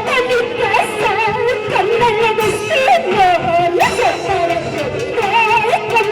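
Huayno music from Huancavelica played by an orchestra: a wavering lead melody with vibrato over a steady beat.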